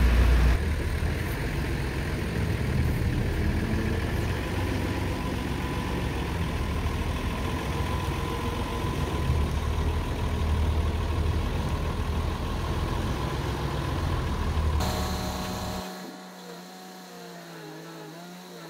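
Large old Hyster forklift's engine running steadily with a low rumble. It cuts off abruptly a few seconds before the end, leaving a fainter wavering pitched sound.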